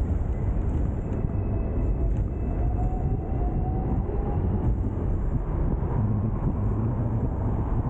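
Hong Kong double-decker tram running along its tracks: a steady low rumble of wheels and motor, with a faint rising whine about three seconds in.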